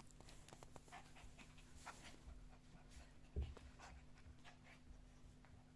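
Dog panting faintly, with scattered small clicks and one soft thump about three and a half seconds in, over a low steady hum.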